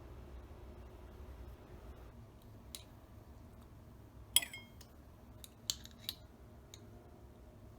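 Faint handling of kitchenware: a few sharp metallic clicks and clinks. The loudest comes about four seconds in and rings briefly, and a quick cluster follows a second or two later.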